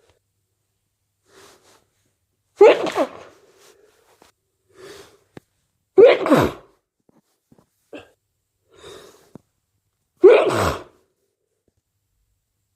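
A person sneezing three times, loud and sudden, about three and a half seconds apart, each sneeze sliding down in pitch. Quieter breaths come between the sneezes.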